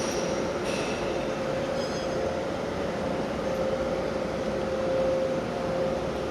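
Steady mechanical rumble with a constant mid-pitched hum, and a few faint light clinks about a second and two seconds in.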